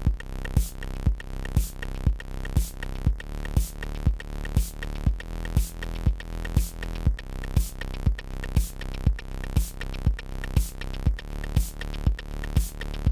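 Electronic background music with a steady drum-machine beat, about two beats a second, over synthesizer chords.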